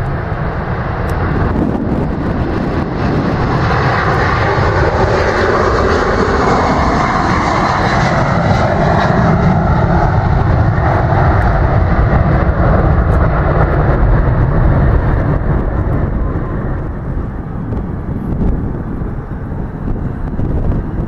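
Boeing 767-300ER twin jet engines at takeoff thrust as the airliner rolls, lifts off and climbs away. The loud jet noise builds over the first few seconds, holds, then fades after about sixteen seconds.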